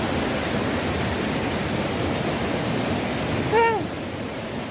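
Steady rushing water of a small waterfall, with a short voiced call about three and a half seconds in.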